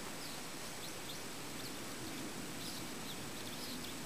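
Small birds chirping faintly in short, scattered calls over quiet rural background noise.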